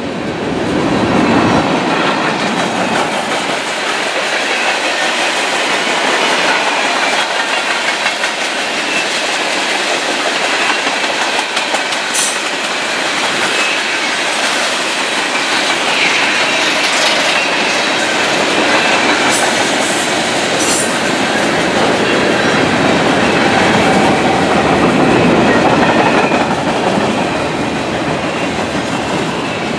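Long freight train rolling past at speed: steady rumble of the cars with a clickety-clack of wheels over rail joints. Around the middle come a few brief sharp squeals from the wheels.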